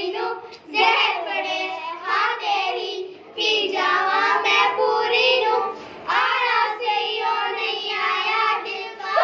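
Several young girls singing together, in sung phrases of a couple of seconds with brief breaks between them.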